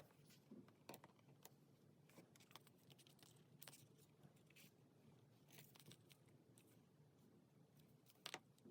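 Faint, sparse paper-craft handling sounds: soft taps, light rustles and small clicks of stickers and paper being picked up and pressed down on a diary page, with a slightly louder tap near the end.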